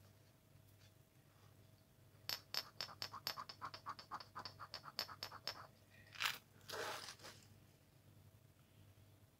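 A piece of silver jewellery rubbed quickly back and forth on a black touchstone: a fast run of about twenty short scrapes over three seconds, then a couple of longer rubs. This lays down a metal streak for an acid test for silver.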